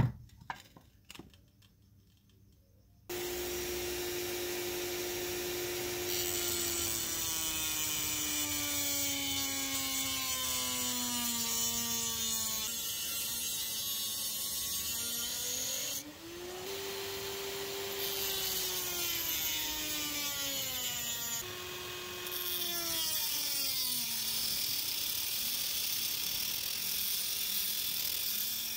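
A few light clicks, then a small rotary tool with a cutting disc starts about three seconds in and cuts into a small model car part. Its motor hum sags slowly in pitch as the disc bites, rises again after a short break midway, and sags again, with a grinding hiss on top.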